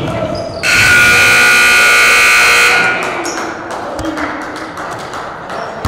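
Gymnasium scoreboard buzzer sounding once for about two seconds, starting and cutting off abruptly.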